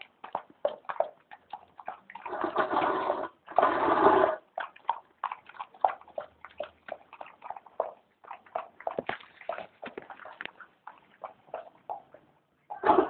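A dog eating soupy food from a stainless steel bowl: a busy run of wet lapping, slurping and chewing clicks, with two longer, louder noisy stretches between about two and four seconds in.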